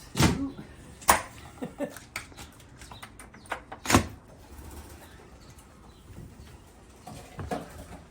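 A handful of sharp knocks and clicks, the loudest just after the start, about a second in and about four seconds in, as a pigeon loft door is opened and handled.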